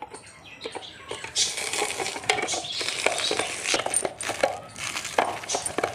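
Hand-operated vegetable chopper with a steel bowl being worked, its blades rattling and clattering against the metal as they chop onion, green chillies, garlic and ginger. The clatter starts sparse and turns dense and continuous after about a second and a half.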